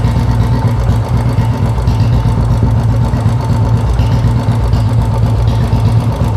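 Royal Enfield Bullet's single-cylinder four-stroke engine idling steadily, with an even low thumping beat, running so that the charging voltage at the battery can be measured.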